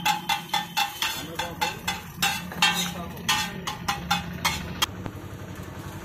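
Steel spatula repeatedly striking and scraping a flat iron griddle (tawa) as it chops scrambled egg, about four ringing clangs a second, stopping about five seconds in. A steady low hum runs underneath.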